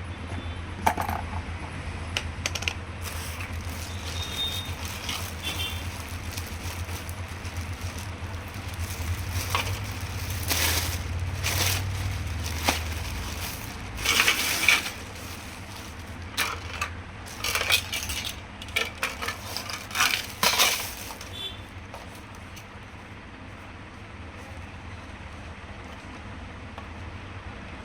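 Clicks, knocks and light clinks of small plastic and metal fan parts being handled and fitted together, most of them in a busy stretch around the middle. Under them is a low steady hum that fades out about halfway through.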